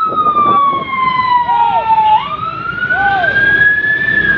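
A siren wailing in a slow rise-and-fall cycle: its pitch falls for about two seconds, snaps back up a little after the midpoint and climbs again until near the end. It sounds over continuous traffic and crowd noise.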